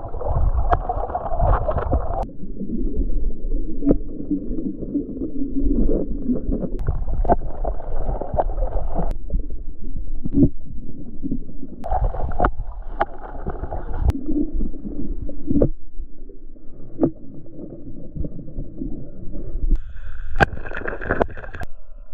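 Muffled underwater sound of a stream heard through a submerged camera: water movement and gurgling, with sharp clicks and knocks scattered throughout.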